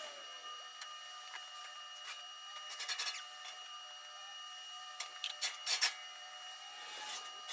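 Rubbing or rasping strokes on wood in three short groups, the loudest about five to six seconds in, over a faint steady hum.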